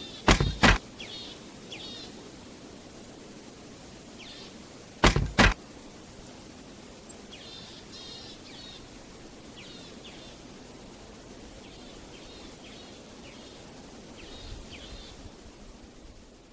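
Birds chirping in short repeated calls over a steady outdoor background hiss, with two loud sharp double knocks, about half a second in and about five seconds in.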